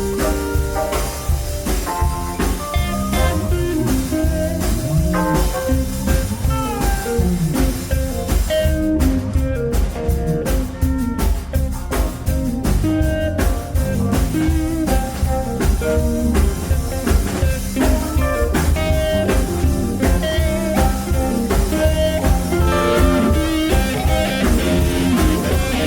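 Live rock band playing an instrumental passage: a guitar lead line over bass and a steady drum-kit beat.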